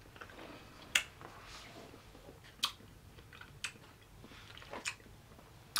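Mouth sounds of a person eating ice cream off a metal spoon: a handful of sharp clicks and smacks, roughly a second apart, over faint room hiss.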